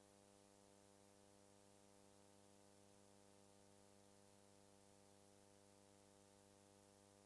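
Near silence: only a faint steady electrical hum with a light hiss.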